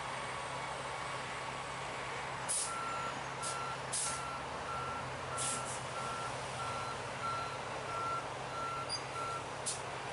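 Heavy truck reversing: its back-up alarm beeps steadily about twice a second, starting a couple of seconds in and stopping just before the end. Short bursts of air-brake hiss break in over the running engine.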